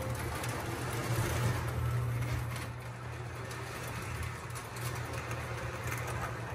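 Lionel O-gauge model train running on its track: a steady motor whir and rolling wheel noise over a strong low hum, with a few clicks from the wheels on the rails.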